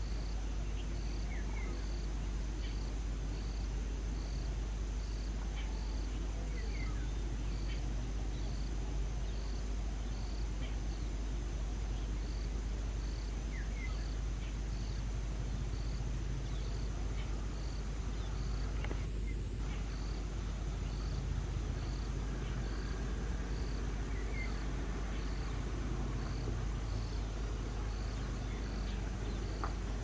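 Steady low outdoor rumble with a cricket chirping evenly, about one and a half chirps a second, and a few faint short chirps now and then.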